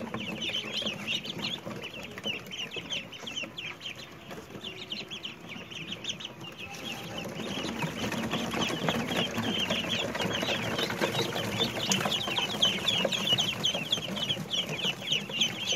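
A brood of three-day-old chicks peeping continuously, many high, short cheeps overlapping, growing louder about halfway through.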